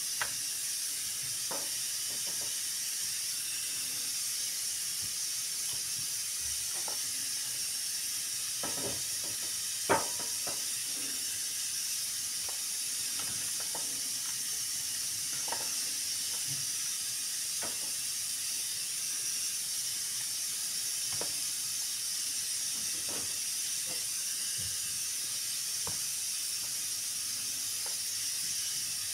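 Soft wet squelches and faint knocks of raw meat pieces being dipped and turned in a thick marinade in a plastic bowl and laid on a metal baking tray, with one sharper knock about ten seconds in. A steady high hiss runs underneath.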